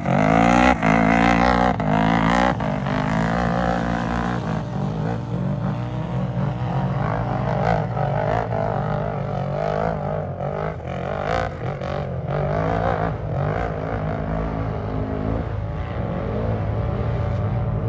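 Off-road race vehicle engines running: the pitch rises as they accelerate in the first couple of seconds, then settles into a steady drone that wavers in pitch. A few sharp clicks or knocks come in the middle.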